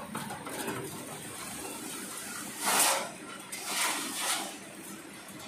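Thin perforated metal sheet scraping and rattling as it is fed through a roller leveling machine, with two short swishes about three and four seconds in over the machine's steady running.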